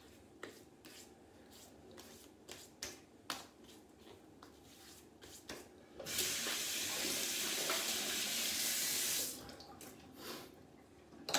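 Bathroom sink tap running for about three seconds, turned on about six seconds in and shut off abruptly, with a few faint taps and pats before it.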